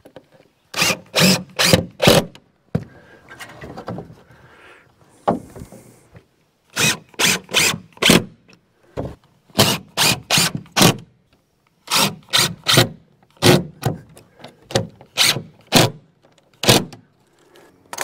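Cordless driver sinking screws through wooden battens into the shed siding in short trigger bursts. It comes in clusters of four or five quick pulses with pauses between screws.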